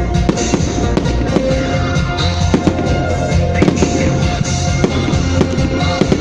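New Year's fireworks going off in a rapid series of bangs and crackles, with music playing underneath.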